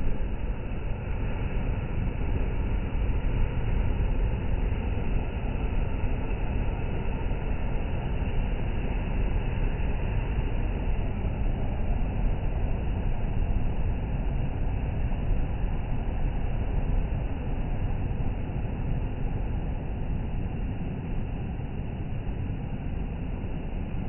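Sea surf and wind: a steady, low rushing noise that does not let up.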